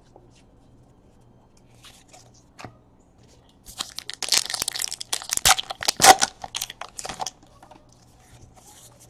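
A foil trading-card pack wrapper being torn open and crinkled, a dense run of sharp tearing and crackling lasting about three and a half seconds. It starts a little before the halfway point.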